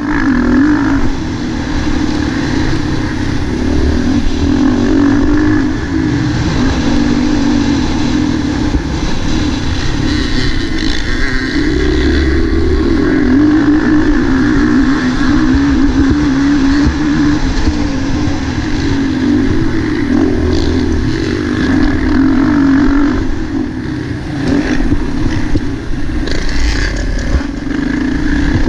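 Motocross bike engine heard from on board, running hard the whole time and rising and falling in pitch as the throttle opens and closes around a dirt track.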